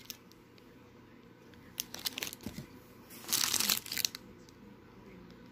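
Clear plastic bags of wax melts crinkling as they are handled, in short crackly bursts about two seconds in and again, louder, around three and a half seconds in.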